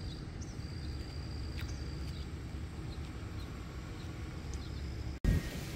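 Outdoor ambience: a steady low rumble with a few short bird chirps and a thin, high, steady note that comes and goes above it. About five seconds in it cuts abruptly to steady falling rain.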